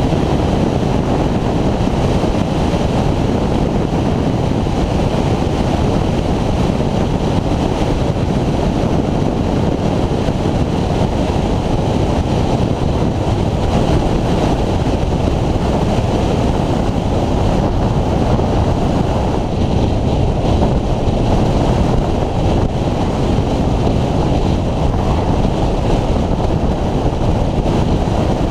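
Wind buffeting the microphone of a Honda VFR800X Crossrunner motorcycle cruising at a steady speed, with the bike's engine and road noise running beneath it. The noise stays steady throughout, with no revving.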